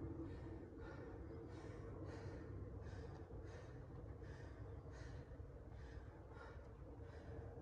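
A man breathing hard, faint quick even breaths about two a second: recovering between rounds of push-ups and dumbbell clean and presses.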